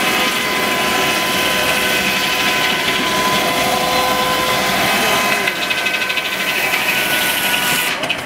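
Steam-driven circular saw bench running, belt-driven by a 1903 Burrell 6 NHP single-cylinder traction engine: a steady, loud whine of the saw blade as timber is fed through it. From about five and a half seconds in, the sound takes on a rapid flutter.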